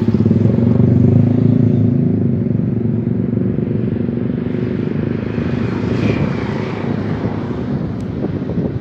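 Motorcycle and scooter engines passing close by on a road, loudest in the first couple of seconds and then slowly fading.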